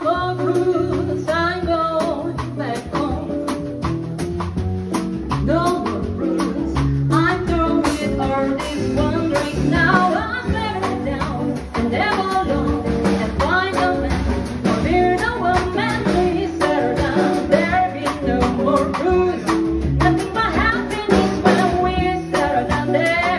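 Live acoustic band: a woman singing a melody into a microphone over a walking upright bass, acoustic guitar and a drum kit, with steady drum strokes.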